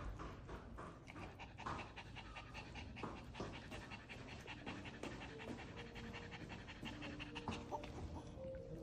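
Maltese dog panting quickly in an even rhythm.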